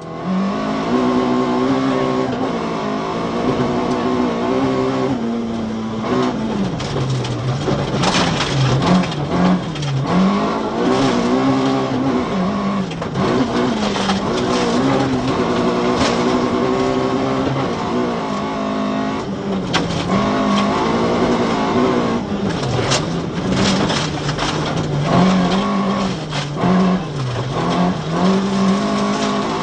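Volvo 940 rear-wheel-drive rally car's engine heard from inside the cabin, driven hard: the revs climb and drop back again and again as the sequential gearbox is shifted. Sharp knocks come through now and then.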